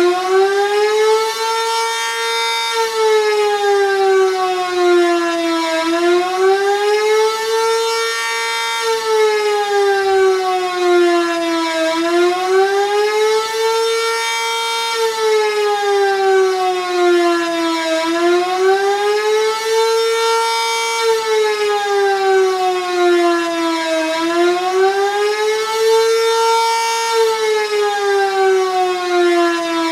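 Sentry 3V8 electromechanical outdoor warning siren running a fast wail, its pitch rising and falling about every six seconds.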